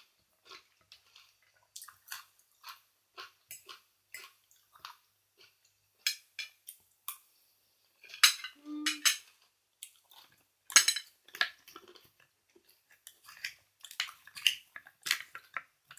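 Eating raw oysters: scattered light clicks and clinks of cutlery and shells on dishes, with wet chewing and slurping, loudest a little past the middle.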